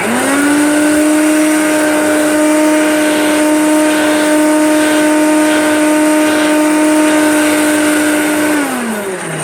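Hoover Turbomaster vacuum cleaner switched on, its motor coming up to speed almost at once and running with a steady whine. Near the end it is switched off and the pitch falls as the motor winds down.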